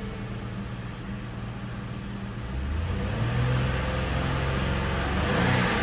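2012 Lincoln MKZ's 3.5-litre V6 engine running at idle, then revved up from about halfway through, climbing to a peak near the end before easing off.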